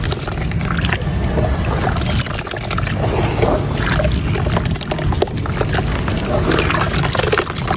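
Wet marble-powder chunks crumbling and breaking up in water: steady gritty crackling and crunching mixed with sloshing.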